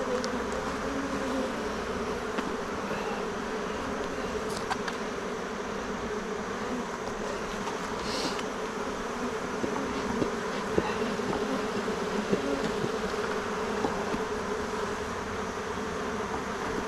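Honeybee colony buzzing steadily from an opened hive: a dense, even hum of many wings, with a few small clicks.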